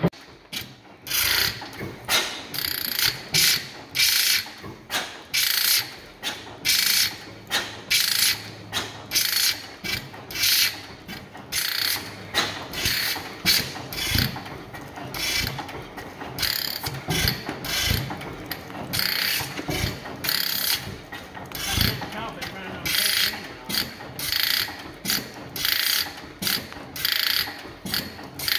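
15 hp Fairbanks Morse Model N single-cylinder engine running on propane, its valve gear clicking sharply in a steady rhythm of about one and a half to two clicks a second. A deeper thump comes now and then as the engine fires only here and there.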